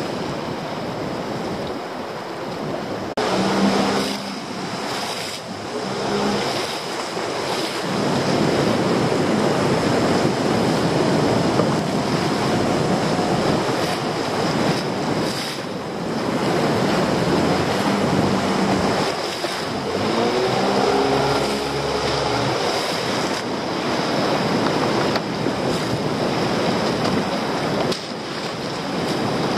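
Sea swell washing and surging around a small open boat, a steady rush of water.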